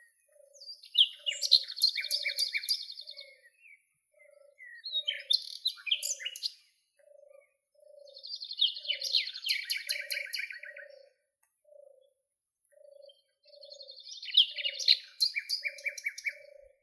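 Songbirds singing in four bursts of fast, high, trilling phrases with pauses between them. Under the song, a soft low note repeats steadily about three times every two seconds.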